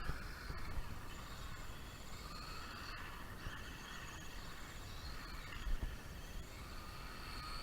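Electric whine of a 1/16-scale brushed RC drift truck driving, rising and falling in pitch as the throttle changes, over a low wind rumble.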